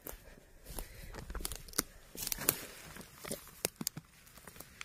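Irregular crunching and crackling of dry forest-floor litter being stepped on and disturbed, about a dozen sharp cracks spread unevenly through the moment.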